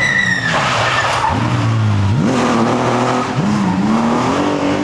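Historic rally car accelerating away hard, the engine revving up with its pitch climbing, dropping at a gear change about three seconds in, then climbing again. A short high squeal at the very start.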